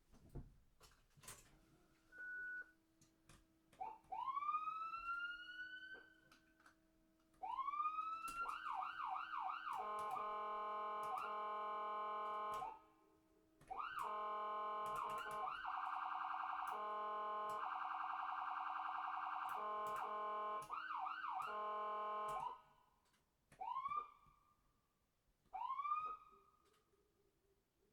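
Cartoon-style ambulance siren sound effect: quick rising whoops, then long held multi-tone siren blasts for about twelve seconds, broken by two short gaps, then more rising whoops near the end. Scattered clicks run through it.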